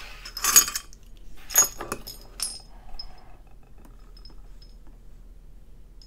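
Metal clinking and rattling as lock picks are put down and a brass lock cylinder is set on an aluminium pinning tray. There are three sharp, ringing clinks in the first two and a half seconds, then a few faint ticks.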